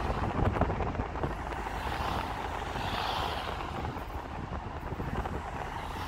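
Road noise of a car driving along a street, heard from the car: a steady rush of tyres and air, swelling and fading about halfway through as other traffic goes by.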